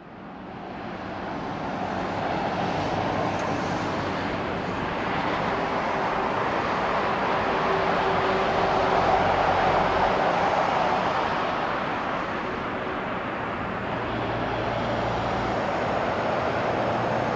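Jet airliner on landing approach passing low overhead: a steady, dense jet roar that swells over the first two seconds and is loudest about nine seconds in.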